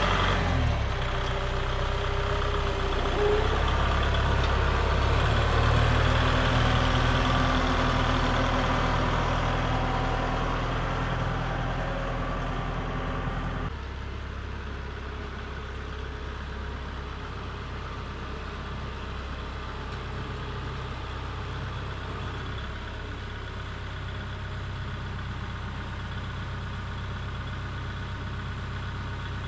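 Kubota M5660SU tractor's four-cylinder diesel engine running steadily. About halfway through it drops abruptly to a quieter, more distant running.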